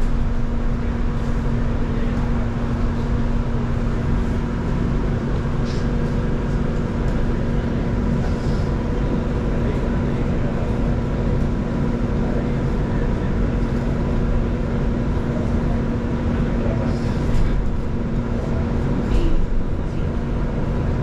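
Interior ride noise of an Irizar ie tram battery-electric bus cruising: steady road and running noise with a constant electric drive hum.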